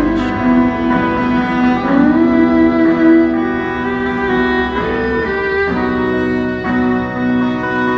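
Background music led by bowed strings playing slow, sustained notes with sliding changes of pitch.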